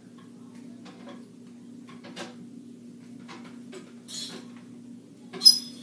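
Handling of a Hot Tools 1¼-inch curling iron: light clicks of the clamp opening and closing, and one sharper metallic clink about five and a half seconds in, over a steady low hum.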